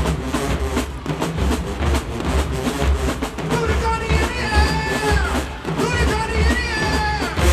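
Marching band playing: heavy bass drums and drumline keep a steady beat, and held melody notes from the horns come in about four seconds in.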